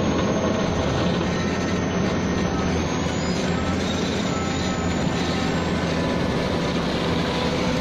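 JIANGTU vibro ripper on an excavator vibrating its tip into a rock face, a loud, steady mechanical noise together with the excavator's running engine.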